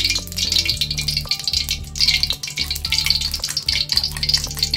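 Hot cooking oil crackling and sizzling in an aluminium wok, heated ready for frying, with background music playing over it.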